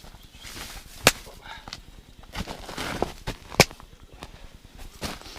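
Scattered sharp clicks and knocks from working a burbot tapping rig, two of them loud, about a second in and at about three and a half seconds.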